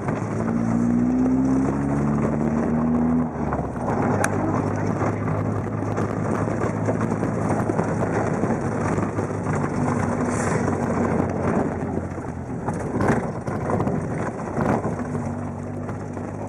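Off-road jeep's engine revving up over the first few seconds, then running under load, with dense rattling and knocking throughout as the vehicle travels over rough ground.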